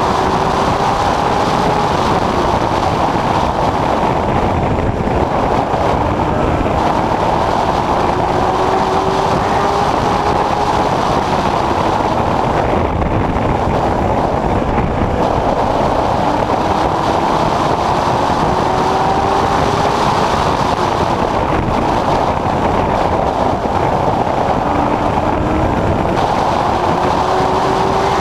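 Late Model Stock race car's V8 engine at racing speed, heard from inside the car over heavy wind and road noise. The engine note climbs under acceleration and drops back several times as the car laps the short oval.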